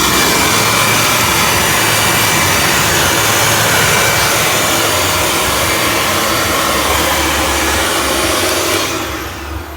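Dirt Devil Ultra Vision Turbo upright vacuum cleaner running steadily on carpet, a loud motor rush with a steady whine. Near the end it is switched off and the motor winds down with a falling whine.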